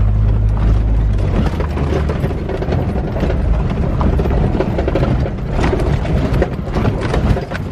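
Jeep Wrangler JK rocking over a rough dirt trail: a steady low rumble from the engine and drivetrain under a dense clatter of rattles and knocks from the body and suspension.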